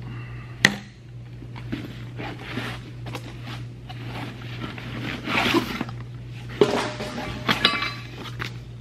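Rustling and clicks of a fabric tool bag being handled and zipped, with a sharp click just over half a second in, over a steady low hum.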